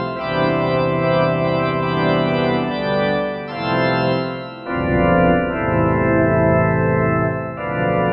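Roland D-50 software synthesizer playing a sustained organ-like chord patch, the held chords changing about four times.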